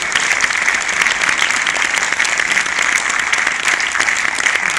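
Audience applauding: many hands clapping in a dense, steady patter without a break.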